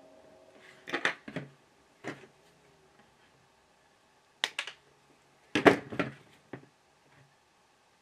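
Small flush cutters snipping through a coaxial cable's inner jacket, mixed with clicks from the cutters and the F connector being handled. Sharp snaps come about a second in, again around four and a half seconds, and loudest in a quick cluster just before six seconds.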